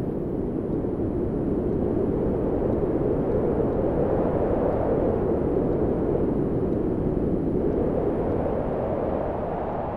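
Steady low rushing noise like strong wind or air streaming past, even and without any tone. It swells a little through the middle and fades slowly near the end.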